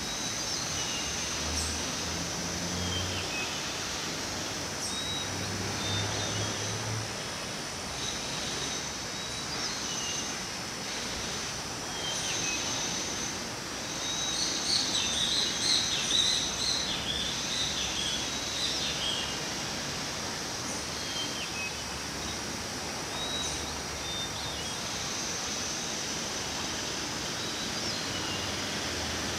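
Birds calling in a wooded garden, with short chirps repeated every few seconds over a steady high-pitched background hiss. A louder, busier flurry of bird calls comes about halfway through.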